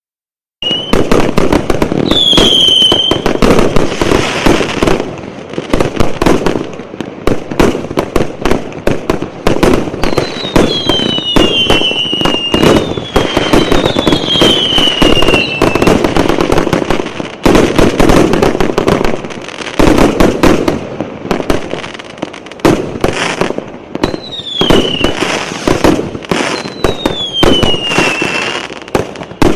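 Fireworks going off in a rapid, almost continuous run of bangs and crackle, with several whistles that fall in pitch between the bursts.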